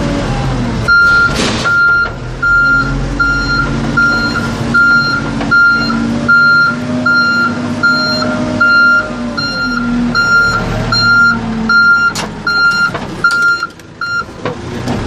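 A JCB backhoe loader's reversing alarm beeping steadily, roughly three beeps every two seconds, from about a second in until near the end. Under it the machine's diesel engine runs with its pitch rising and falling as it is throttled.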